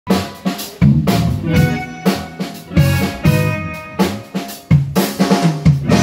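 Live band playing an instrumental passage at a sound check: drum kit hits on snare and bass drum stand out, with bass guitar, electric guitar and keyboard notes ringing between them.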